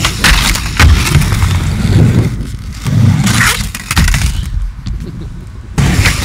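Skateboard wheels rumbling on concrete, with several sharp clacks and slaps of the board against the ground and a concrete box. The sound changes abruptly near the end as another run begins.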